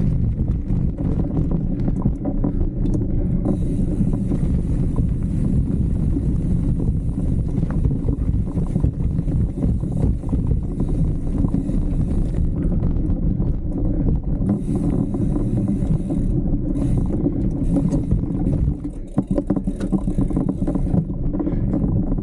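Mountain bike being ridden over slickrock: steady low wind noise on the microphone mixed with tyre noise and frequent small rattles and knocks from the bike.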